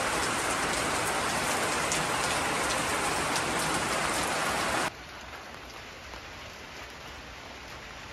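Heavy rain pouring down steadily. About five seconds in it cuts abruptly to a quieter, duller hiss.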